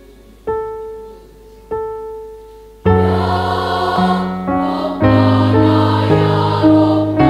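Piano introduction: two single notes ring and fade, then about three seconds in loud chords start, struck about once a second, as a girls' choir comes in singing.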